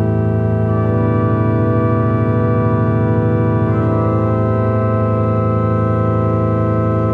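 Ambient drone music: a sustained organ-like chord of many held tones. Its upper notes shift to a new chord about a second in and again about four seconds in, over a low note that wavers with a slow beat.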